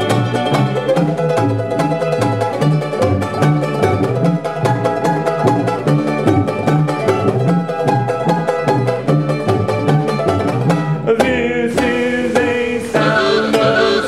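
Band music: quick plucked-string notes over a bouncing bass line, moving into a different passage about eleven seconds in.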